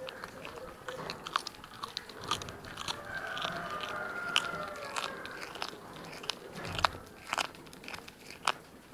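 A cat crunching and chewing raw chicken feet, cracking the bones with irregular sharp cracks.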